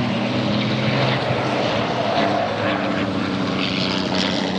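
Diesel engines of racing trucks running hard at speed, a steady drone that holds without sharp changes.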